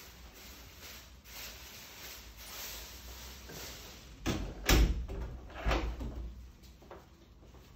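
Hotel room door pulled shut, closing with a loud thud about four and a half seconds in, then a second lighter knock about a second later. Softer knocks and rustles come before it.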